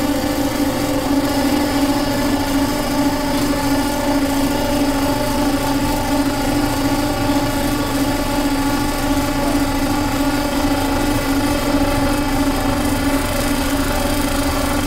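Small wooden button accordion holding a dense chord as a continuous, unchanging drone, with a strong low note and many higher tones above it.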